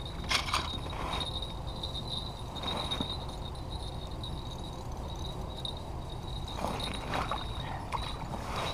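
Wind rumbling on the microphone under a faint, steady high-pitched whine, with a few short rustles and scrapes of handling at an ice-fishing hole as a hooked rainbow trout is brought up through it: a burst at the start, one about three seconds in and one about seven seconds in.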